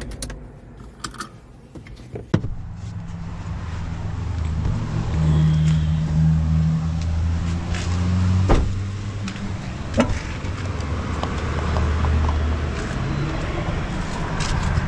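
Car running as heard from inside the cabin: a steady low engine hum with road noise, growing louder a few seconds in, with a few sharp clicks or knocks.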